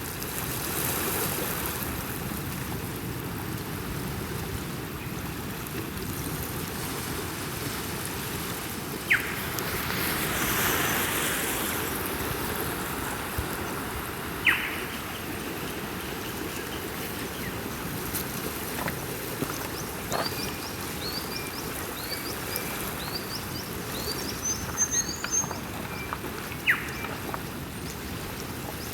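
Ocean waves washing steadily, swelling a little about a second in and again near the middle, with birds calling over them: three sharp down-slurred calls and a run of quick high chirps in the second half.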